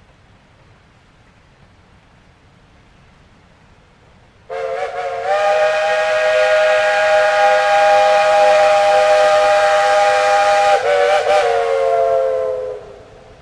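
Steam locomotive whistle blowing one long blast of about eight seconds, a steady chord of several notes. It starts about four seconds in, wavers briefly near the end and sags in pitch as it shuts off.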